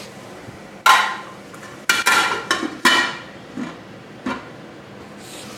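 Metal cookware clanking: several sharp, ringing metallic knocks, the loudest about a second in, then two more close together, fading to lighter taps.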